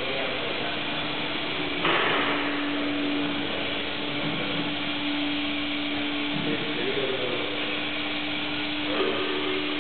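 A steady machine hum over constant workshop noise. A sudden rush of noise about two seconds in is followed by a steady, even tone.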